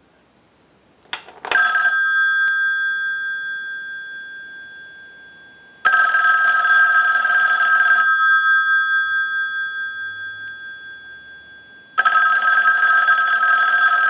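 The mechanical bell of a Western Electric 500-series rotary dial wall telephone ringing in on ring cycles sent from a line analyzer, as for an incoming call. The two gongs sound in three bursts, near the start, around the middle and near the end, and they ring on and die away slowly in the pauses between.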